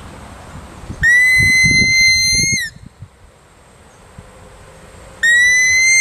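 Small handheld game call blown as a rusa deer call with the hands cupped over it: two long, high whistle notes of about a second and a half each. Each note scoops up at the start, holds nearly steady while rising slightly, then drops off at the end.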